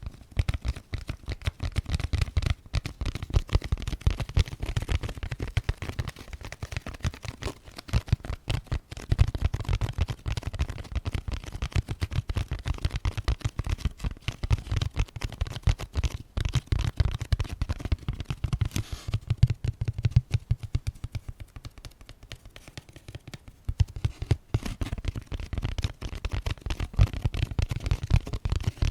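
Fast, continuous ASMR tapping with fingers, many taps a second, each with a dull low knock.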